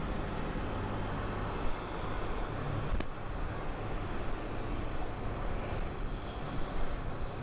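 Riding noise from a Kawasaki Versys 250 motorcycle in traffic: a steady rumble of wind on the camera microphone with engine and road noise beneath. A single sharp click comes about three seconds in.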